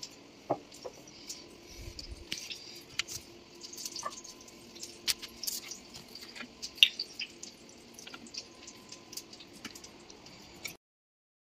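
Small clicks, taps and clinks of a bottle and measuring cup being handled over a ceramic bowl, with liquid dripping and being poured near the end. The loudest click comes about seven seconds in.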